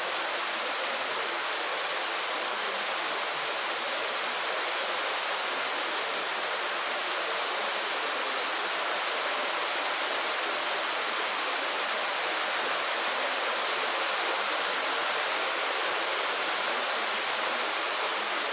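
Heavy rain falling in a steady, dense downpour: an even hiss with no individual drops standing out.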